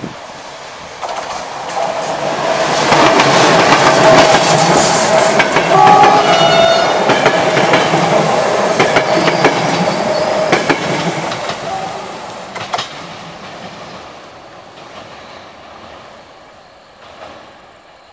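Passenger train hauled by an electric locomotive passing close by. A rising rumble comes as the locomotive arrives and passes, and the locomotive's horn gives a short blast as a salute about six seconds in. The coaches' wheels then clickety-clack over the rail joints, fading as the train moves away.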